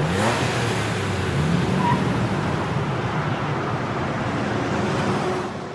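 A car driving: steady engine and road noise that fades away near the end.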